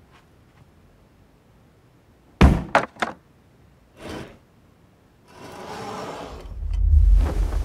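Cartoon sound effects from something out of sight: one heavy thunk, quickly followed by two more knocks, then a softer thud. After that comes a rushing noise that builds into a deep rumble.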